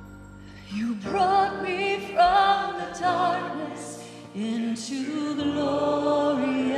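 Slow live worship song: a woman sings the lead melody with vibrato over sustained accompaniment notes. The voice comes in about a second in, after a held chord.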